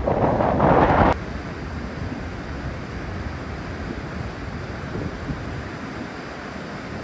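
Wind buffeting the microphone for about the first second, cutting off abruptly, then a steady wash of ocean surf with light wind.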